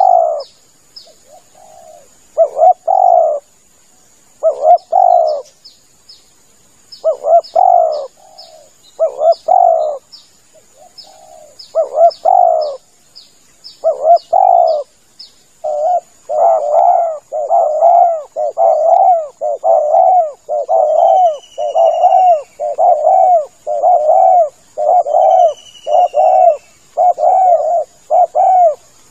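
Spotted dove (tekukur) cooing over and over, in spaced phrases at first, then from about halfway in a quick steady run of about two coos a second. Fast high chirps from another bird in the first half and a few thin falling whistles later sound over a steady high insect-like hum.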